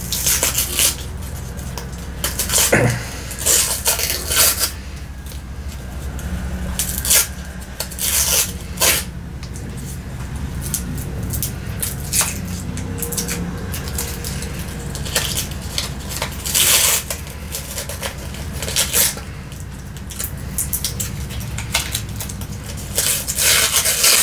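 Paper wrapping being peeled and torn off a beer bottle: irregular crinkling and rustling, with a few sharp clicks against the glass.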